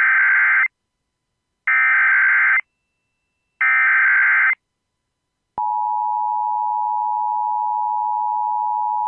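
Emergency Alert System SAME header: three bursts of modem-like digital data tones, each just under a second long, about a second apart. A little over five seconds in, the steady two-tone EAS attention signal starts, marking the broadcast of a tornado warning.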